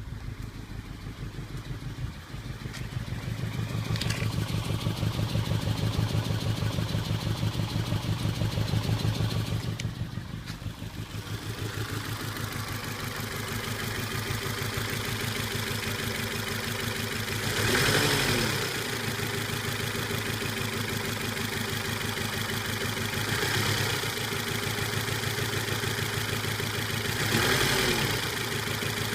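Volvo S40 engine idling with a misfire, its low end pulsing unevenly, and three brief revs in the second half. The misfire comes from two dropped valves on cylinder 4, which has no compression.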